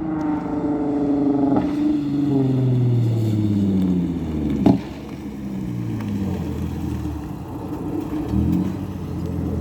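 2009 Lexus IS350's V6 engine and exhaust while driving, its pitch rising and falling with the throttle. There is a single sharp pop about halfway, after which the engine settles to a lower, steadier note.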